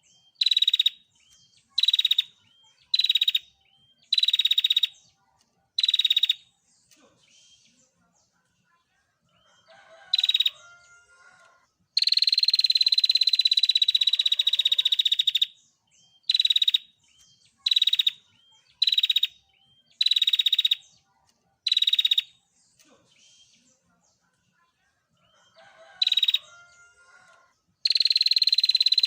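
Female prinia giving its rapid, buzzing 'tir' trill: a run of short half-second trills about one a second, broken by pauses, with a long trill of about four seconds in the middle and another starting near the end.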